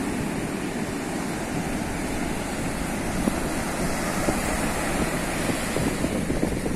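Ocean surf breaking and washing up the beach, a steady rushing wash, with wind rumbling on the microphone.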